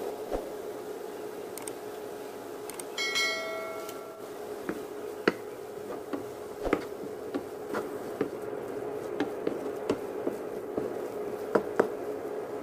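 Wooden spatula stirring grated carrot and coconut in a nonstick pan, with scattered taps and knocks against the pan over a steady hum. A brief metallic ring sounds about three seconds in.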